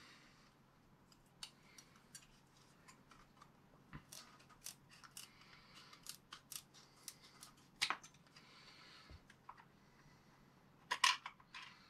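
Scissors cutting a piece of thin Lexan (polycarbonate body shell offcut): a run of short, irregular snips and clicks.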